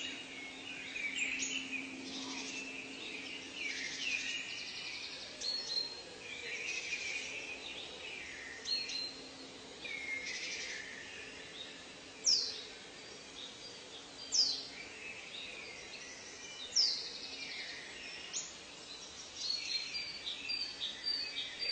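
Several birds chirping and trilling over a steady background hiss. Three loud, quick downward-sliding whistled calls come about two seconds apart in the middle.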